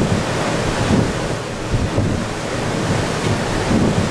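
Wind buffeting the microphone in uneven gusts over the steady rush of water churned up in a ferry's wake.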